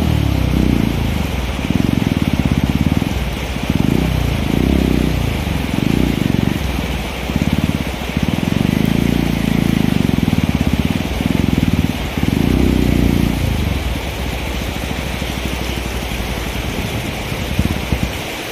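Bajaj Pulsar single-cylinder motorcycle engine revving in a string of short bursts, rising and falling every second or so, as it is ridden over rocks and rough ground. Over the last few seconds it settles to a steadier, lower note.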